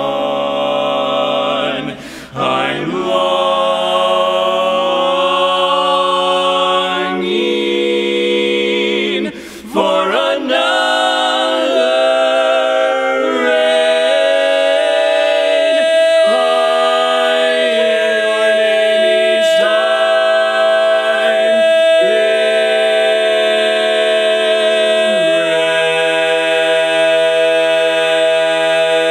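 Barbershop quartet of male voices singing a cappella in close harmony, drawing out the final chords of a ballad. From about halfway through, one voice holds a single high note steady while the others move beneath it to the closing chord.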